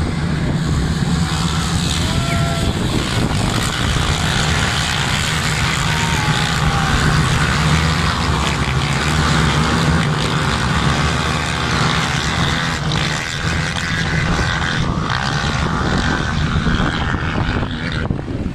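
A field of quad-bike (ATV) engines running together at high revs in a dense, steady drone as the race field pulls away from a mass start.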